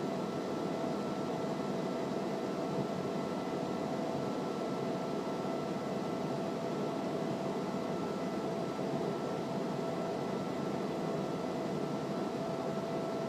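Steady cabin drone of a Cessna P210R single-engine airplane in level flight: engine and propeller noise with a few faint steady tones running through it.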